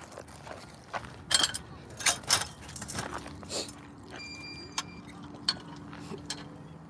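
Footsteps crunching on gravel in a few irregular, sharp steps, the loudest about a second and a half and two seconds in, with a faint steady hum underneath through the middle.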